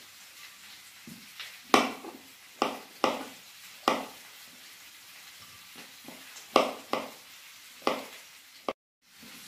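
Kitchen knife slicing mushrooms on a plastic cutting board: about seven sharp, irregular knocks of the blade hitting the board. Underneath, a faint steady sizzle of oil frying in a pan; the sound drops out for a moment near the end.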